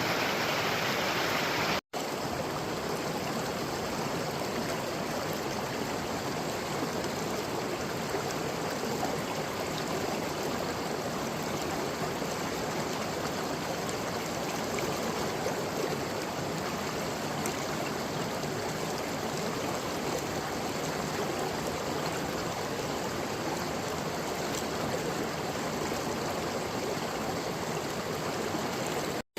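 Forest stream flowing steadily, an even rush of running water that drops out for an instant about two seconds in.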